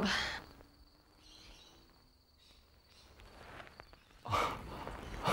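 A near-quiet pause with faint hiss and a thin, steady high whine. About four seconds in comes a short, sharp breath, followed by a softer breathy sound.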